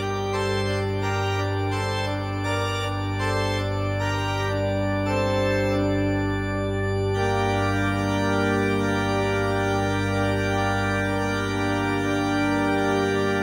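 Instrumental music with no singing: sustained chords over a steady low bass, a quick run of short notes in the first few seconds, then one chord held from about seven seconds in.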